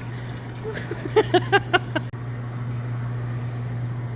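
A short laugh, about five quick pulses in the first half, over a steady low hum from a machine or electrical equipment that carries on through the rest.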